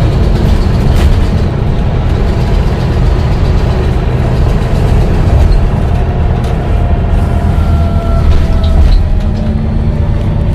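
Volvo B9TL double-decker bus's six-cylinder diesel engine running with a steady low rumble. About halfway through, a faint whine rises slowly in pitch as the bus pulls away or accelerates.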